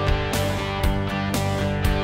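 Background music: a guitar-led song with a steady beat, about two beats a second.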